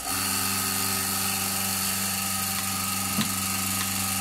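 Milking machine's vacuum pump motor switching on and running with a steady hum, as machine milking of a cow begins; a small click about three seconds in.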